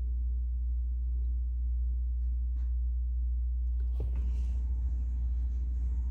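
A steady low rumble or hum, with a single click about four seconds in.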